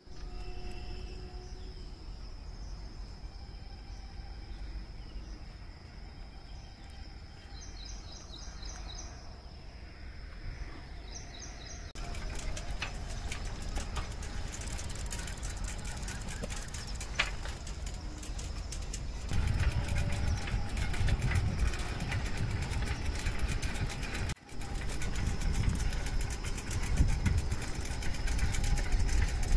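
Outdoor ambience: a steady high insect drone with short bird chirps, then a broad noise that grows about twelve seconds in and becomes a heavy low rumble from about twenty seconds in.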